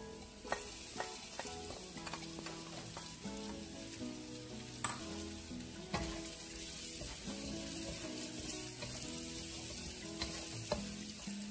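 Garlic sizzling in hot rendered pork belly fat in a pan, stirred with a utensil that clicks against the pan a few times.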